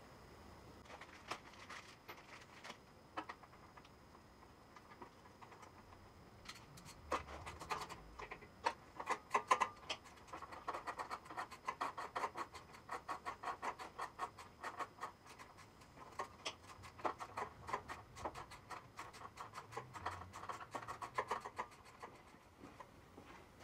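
Ratchet wrench clicking in quick runs, working a part on a Vanguard EFI mower engine, with a few separate metal clicks before the runs start about seven seconds in.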